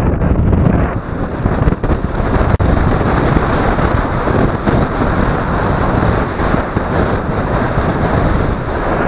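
Loud, steady rush of wind buffeting a camera microphone in flight under a paraglider, heaviest in the low rumble.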